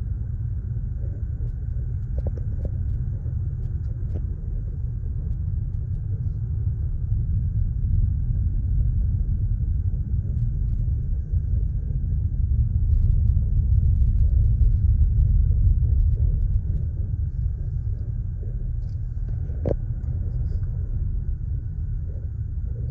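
Steady low rumble of a car's road and engine noise heard from inside the cabin while driving, louder for a few seconds in the middle; a single short tick near the end.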